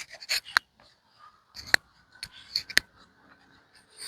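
A tamale-wrapping leaf rustling and crackling as it is handled and folded around masa, with a few sharp clicks about half a second in and again near the two- and three-second marks.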